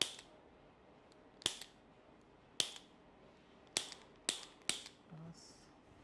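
Six sharp cracks, spaced about a second apart, from the neck joints during a chiropractic neck adjustment.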